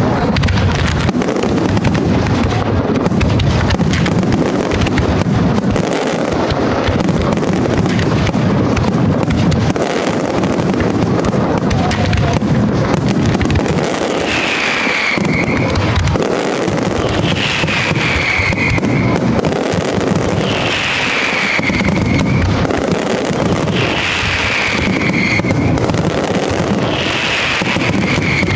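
A large fireworks display firing continuously: a dense, steady run of bangs, booms and crackling from many shells and ground effects at once. In the second half a falling whistle-like tone repeats about every three seconds.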